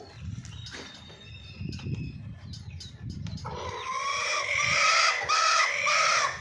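A chicken calling loudly: one drawn-out note followed by three short arched notes, about three seconds in all, starting about halfway in and cut off abruptly. Before it there is a low rumble with scattered clicks.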